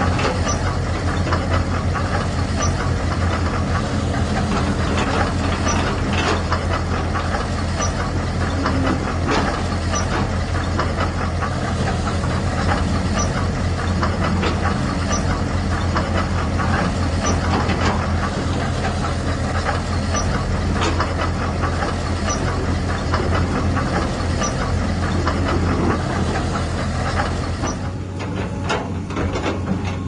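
Radio-controlled model bulldozer running steadily as it pushes dirt: a low engine-like drone with dense clicking from its tracks and small stones. The sound thins out about two seconds before the end.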